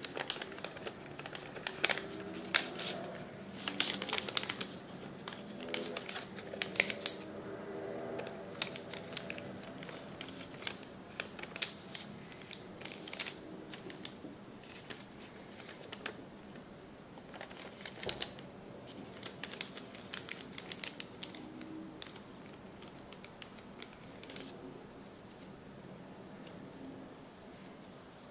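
Origami paper crinkling and rustling as hands fold and crease it, with irregular crisp crackles that are busiest in the first several seconds.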